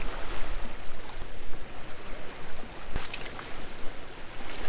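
Small sea waves washing over shoreline rocks, a steady rush of water, with wind rumbling on the microphone. One sharp knock about three seconds in.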